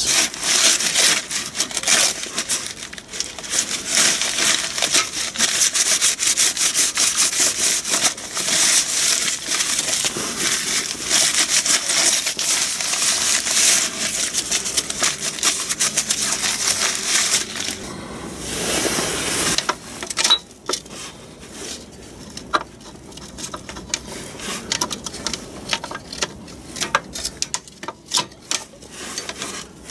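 Paper towel scrubbed hard over the flywheel's friction face, a dense papery rubbing that cleans the surface for a clutch fitting. About two-thirds of the way through it stops, giving way to scattered light clicks and knocks as the clutch plate is handled onto the flywheel.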